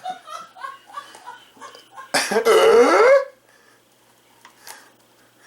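A man's hiccup coming out as a loud, croaking burp about two seconds in, a pitched sound about a second long that rises at the end, after some softer throat and breath sounds.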